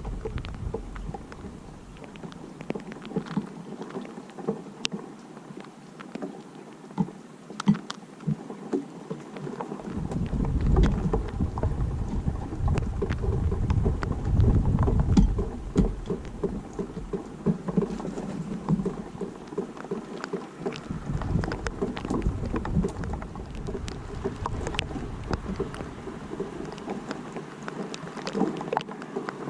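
Rain falling with scattered drip taps, while wind gusts rumble on the microphone, strongest in the middle and later stretches.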